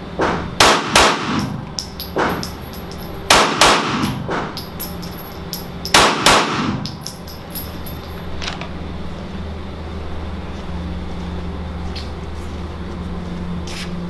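Glock 17 9mm pistol firing three controlled pairs, two quick shots a third of a second apart, about two and a half seconds between pairs, each echoing off the range walls. Lighter metallic clinks follow the shots, the spent brass landing on the concrete floor.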